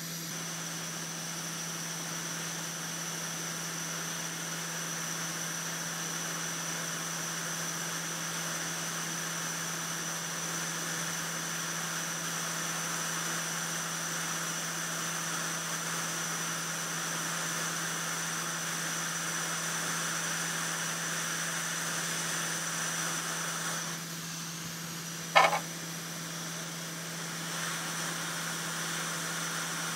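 Hot air rework station blowing a steady hiss of hot air, reflowing solder paste under a surface-mount charger IC. The airflow cuts off about 24 seconds in, and a short beep follows a second or so later.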